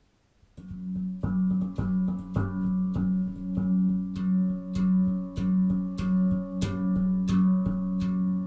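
Manik handpan tuned to the F#2 Nordlys scale, played with the fingertips: a quick run of struck, ringing steel notes begins about half a second in. Under the strikes a low tone keeps ringing and swells and fades in a steady pulse.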